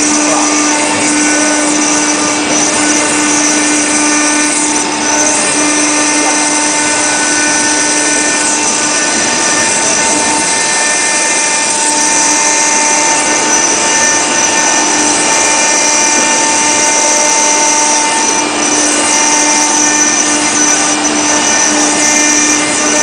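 A NICECNC marble CNC router's spindle runs steadily, its small engraving bit grinding a relief into a marble slab under a water-coolant spray. It is a loud, continuous whine at several pitches over a rough hiss, with a higher tone that fades out about three-quarters of the way through.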